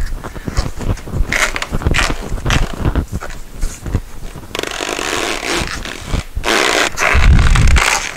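A new tire being worked onto a motorcycle's front rim by hand: irregular scraping and rubbing of the stiff rubber bead against the rim as it is pushed down into the rim well, with a heavy low thump near the end.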